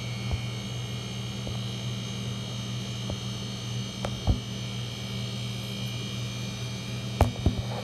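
Steady electrical hum with several short handling knocks scattered through it, the sharpest about four seconds in and near the end.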